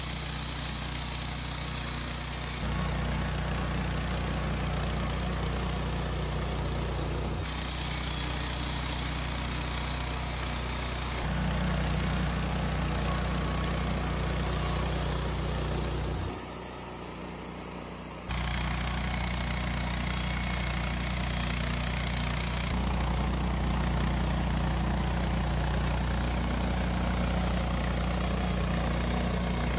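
Woodmizer LT15 Start portable band sawmill running steadily, its engine humming while the band blade edges ponderosa pine flitches. The sound jumps abruptly in level several times, with a quieter stretch about two-thirds of the way through.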